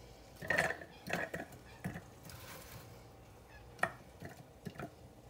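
Apple slices dropped by hand into the plastic bowl of a small Ninja food chopper, which is not running: a string of light, irregular knocks as each piece lands.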